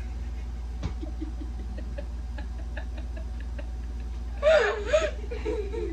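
A steady low hum with a single click about a second in. Then, about four and a half seconds in, a person lets out a loud, high, wavering vocal sound, like a squealing giggle.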